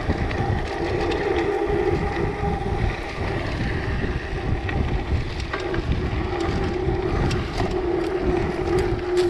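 An Orbea Alma H50 hardtail mountain bike rolling down a dirt trail: wind on the action camera's microphone and tyre rumble, with a steady hum under it and scattered sharp clicks.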